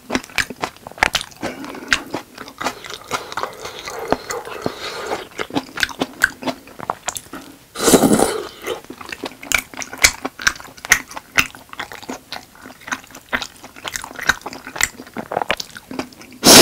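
Close-up wet chewing and mouth smacking of tteokbokki, with dense clicky mouth sounds. About halfway through there is a loud slurp of sauce off a wooden spoon. Just before the end there is one short, very loud noise.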